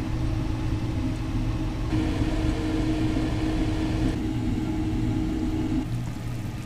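Steady electric hum of a kitchen appliance fan, a low drone with a fixed pitch; the higher part of the hum drops away about six seconds in.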